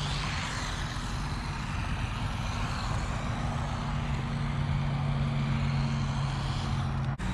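Haiboxing Ratchet 1/18 RC car on its low-speed setting, its small brushed 380 electric motor and drivetrain running in a steady hum during a full-throttle speed run.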